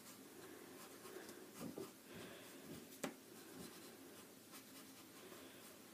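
Faint scratching of a pencil drawing short lines on paper, with a single sharp click about three seconds in.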